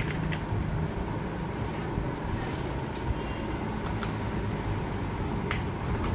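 Steady room noise like a running fan, with a few faint clicks and taps as toy pieces are handled on a tabletop.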